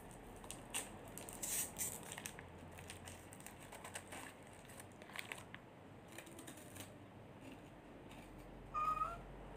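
Plastic wrapper crinkling and rustling in the hands, with scattered sharp crackles and tearing sounds. A brief high squeak sounds near the end.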